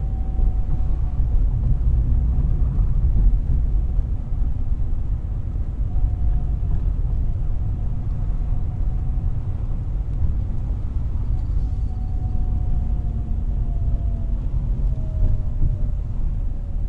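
A car driving: steady low road and engine rumble, with a faint whine that slides slowly lower near the end.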